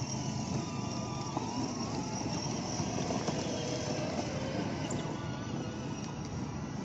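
Battery-powered ride-on toy car driving, a steady rumble of its motor and plastic wheels on rough stone paving.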